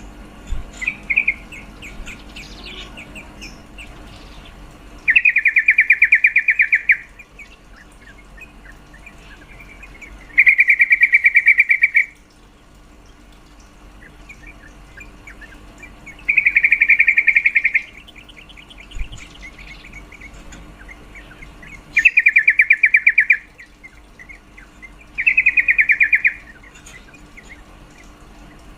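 Female yellow-vented bulbul (trucukan) calling: five loud, rapid rattling trills of about two seconds each, several seconds apart, with softer chirps in between.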